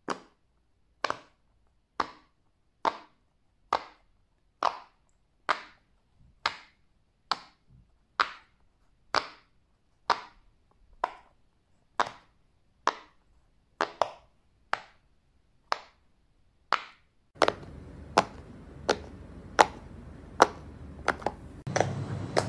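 Sharp single pops from a fidget toy being pressed, evenly spaced at about one a second, each with a short ring. About seventeen seconds in, a steady background noise comes up and the pops quicken slightly.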